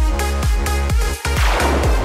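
Electronic dance music with a deep kick drum beating about three times a second. The beat breaks briefly just after a second in, then a cymbal-like wash swells up.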